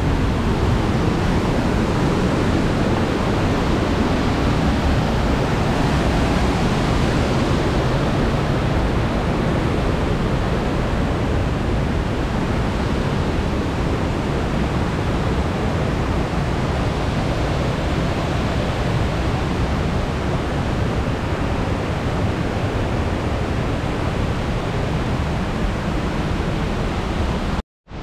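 Waterfall rushing steadily, an even wash of falling water with no breaks, cutting off abruptly near the end.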